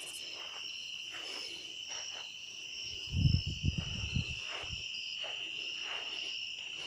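Steady insect chorus holding one high pitch throughout. About three seconds in comes a short cluster of low thuds and rumble lasting a second or so.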